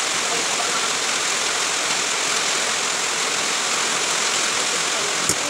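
Heavy rain falling on a corrugated metal roof, a steady, unbroken hiss. A single click near the end.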